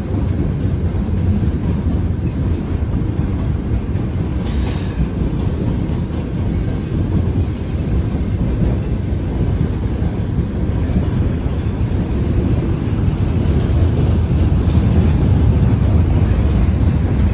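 Freight train of tank cars and boxcars rolling past close by: a steady low rumble of wheels on the rails, growing a little louder toward the end.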